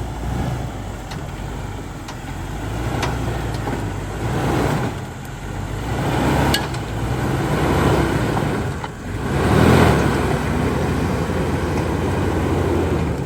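Off-road Jeep's engine running under load as it crawls over rough ground, its sound swelling and easing in several surges, with the loudest push about two-thirds of the way in. A few sharp knocks or clicks come from the vehicle along the way.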